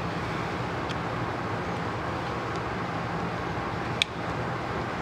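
Steady workshop background noise with a low hum, and one sharp click about four seconds in as the brake caliper is handled on the bench.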